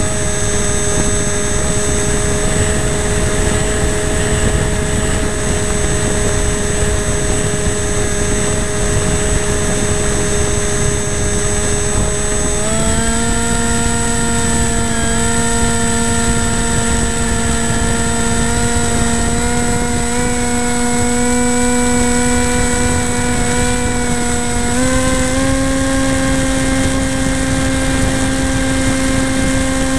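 Motor and propeller of a radio-control FPV plane running steadily in flight, picked up by the onboard camera with a rushing wind hiss. Its pitch steps up twice, about a third of the way in and again near the end.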